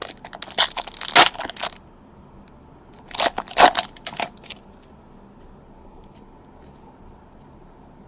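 Trading-card pack wrapper crinkling and tearing as it is ripped open, in two bursts of rustling about two seconds apart.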